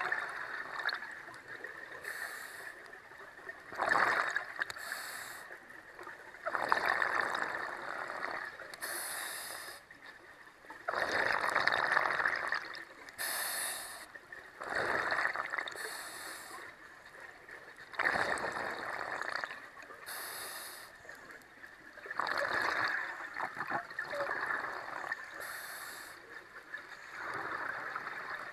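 Scuba regulator breathing underwater: a short hiss on each inhale and a rush of exhaled bubbles, repeating about every four seconds.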